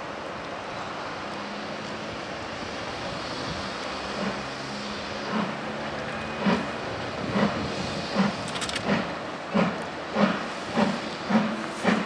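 LMS Class 5MT 'Black Five' 4-6-0 steam locomotive starting away with a train. A steady hiss of steam comes first, then exhaust chuffs begin about four seconds in and quicken as it gathers speed.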